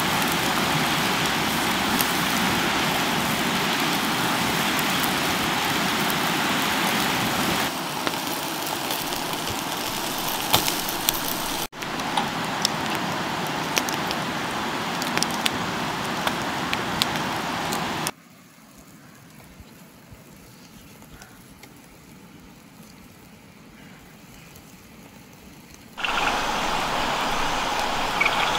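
Chicken sizzling over a charcoal grill fire: a steady hiss with scattered crackles. It drops much quieter for about eight seconds past the middle, then returns.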